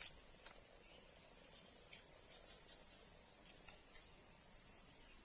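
Steady, high-pitched insect chorus of crickets, running unbroken, with a few faint soft ticks.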